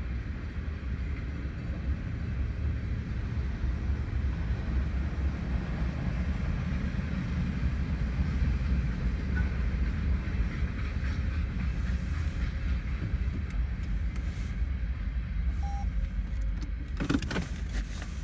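Freight train cars rolling past a grade crossing: a steady low rumble with wheel noise, and a few sharp knocks near the end.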